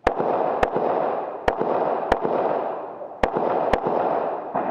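Handgun shots fired in quick pairs, three pairs about a second apart, with about half a second between the two shots of each pair: a competitor engaging targets on a USPSA stage, two rounds per target. A steady rushing noise runs under the shots.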